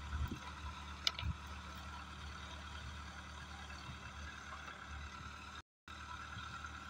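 Diesel engine of a hydra mobile crane running at idle, a steady low hum, with one sharp click about a second in. The sound drops out for a moment near the end.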